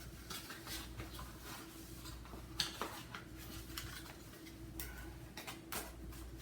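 Faint, scattered clicks and rustles of a small cardboard box and its packing being handled as a vacuum attachment is worked out of it, over a faint steady hum.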